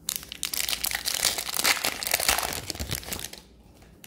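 Foil wrapper of an Upper Deck Series 2 hockey card pack being torn open and crumpled in the hands: dense crinkling that stops after about three seconds.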